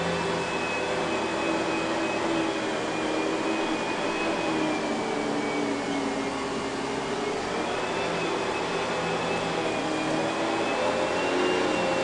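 2000 Kenmore Progressive (116.20712000) canister vacuum running on carpet with its power nozzle: a steady motor rush with a high whine that wavers slightly in pitch as the nozzle is pushed back and forth. The canister holds an early Panasonic-made motor, which makes it sound odd for this line of canisters.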